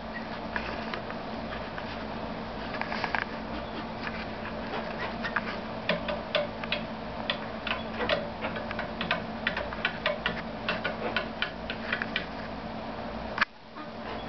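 Chickens pecking at feed on concrete and on a wooden feeder platform: a quick, irregular run of sharp little beak taps, thickest in the middle, over a steady low hum. One louder click comes near the end.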